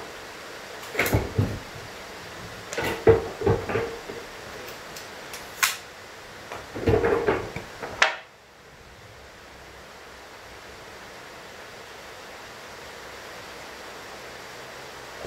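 Pneumatic brad nailer shooting nails into plywood, a scatter of sharp shots mixed with wooden knocks of plywood pieces being set down and tapped into place over the first eight seconds. A steady background hiss cuts off suddenly about eight seconds in, leaving only faint room noise.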